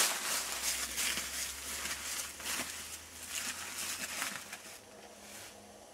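Footsteps crunching and rustling through dry fallen leaves, an uneven run of steps that grows fainter over the last couple of seconds.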